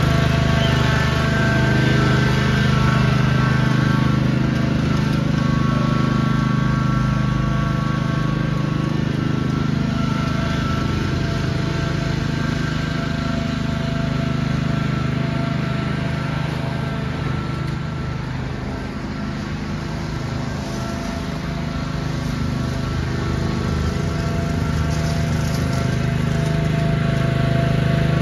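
Riding lawn tractor engine running at a steady speed while towing a dethatcher across the lawn. It fades a little about two-thirds of the way through, then comes back up.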